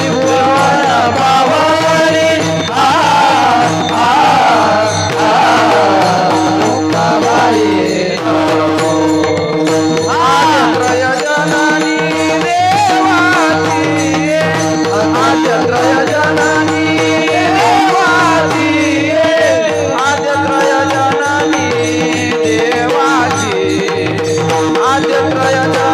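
Marathi devotional kirtan singing: a male singer draws out long, wavering, ornamented phrases over a steady held drone, with hand-drum strokes accompanying.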